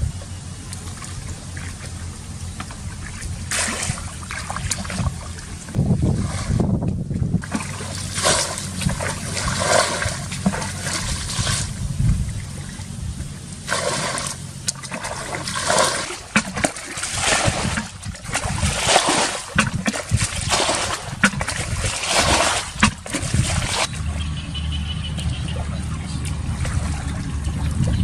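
Water being scooped and thrown by hand out of a shallow rice-field pool: repeated splashes and trickling, about once a second through most of the stretch, settling near the end, over a steady low rumble.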